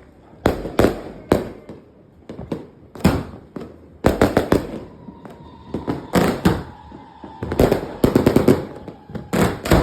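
Fireworks from a finale board going off: sharp bangs in quick succession, thickening into dense, rapid volleys about four seconds in and again near the end. A faint steady whistle sounds through the middle.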